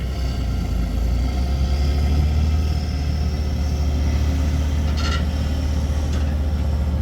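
A large engine running steadily with a strong, even low drone and a faint high whine above it. Two brief high-pitched sounds come about a second apart near the end.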